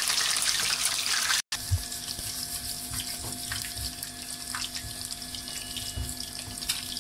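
Chicken mince drumsticks deep-frying in hot oil in a wok: a loud, dense sizzle that cuts off abruptly about a second and a half in, then a quieter steady sizzle with scattered pops and crackles over a low steady hum.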